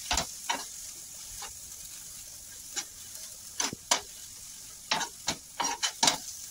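Chopped onion, capsicum and tomato sizzling in butter on a flat tawa, with a spatula scraping and tapping against the pan as the vegetables are stirred; the scrapes come in a quick bunch near the end.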